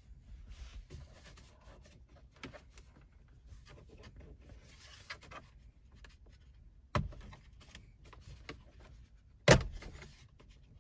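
Plastic lower trim panel of a 2015 Acura TLX centre stack being pried off by hand: faint rubbing and handling, then two sharp snaps about two and a half seconds apart, the second louder, as its clips let go.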